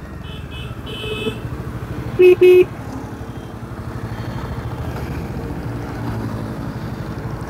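Bajaj Dominar 400's single-cylinder engine running steadily at low revs as the bike pulls up and stops. A horn beeps twice in quick succession a little over two seconds in, the loudest sound, with a few fainter, higher beeps in the first second or so.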